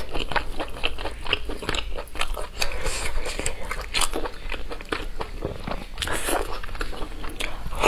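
Close-miked chewing and biting of braised pork: wet mouth sounds with many short clicks and crackles, continuing throughout.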